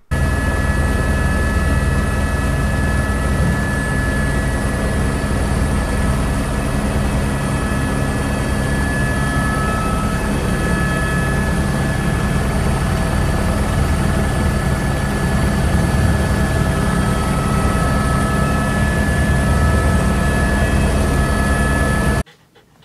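Helicopter in flight heard from inside the cockpit: a loud, steady engine and rotor noise with a few steady high tones over it, which cuts off abruptly near the end.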